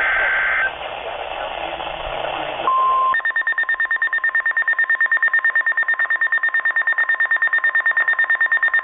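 NOAA Weather Radio alert: a short buzzy digital header burst, then a steady single alert tone starts about two and a half seconds in. Soon after, the receiver's rapid pulsing alarm beeps join in, several beeps a second, and carry on until near the end. The receiver is sounding a flood warning.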